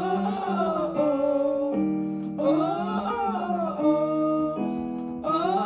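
A singer's vowel warm-up exercise: a sustained vowel sung in short phrases that rise and fall, three of them in a few seconds, over sustained keyboard chords that step from one chord to the next.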